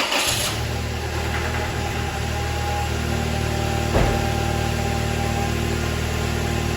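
2001 Toyota Tacoma's engine, just started, settling from the start-up flare into a steady idle, with one sharp click about four seconds in.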